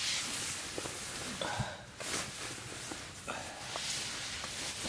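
Rustling of a nylon-shelled down sleeping bag being handled and hung up to dry, a steady swishing hiss that pauses briefly about two seconds in, with a few small clicks.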